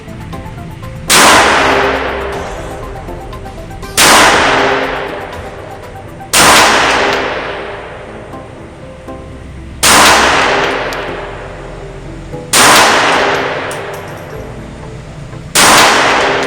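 Glock 25 pistol firing .380 ACP, six single shots spaced a few seconds apart, each ringing out and fading over a couple of seconds.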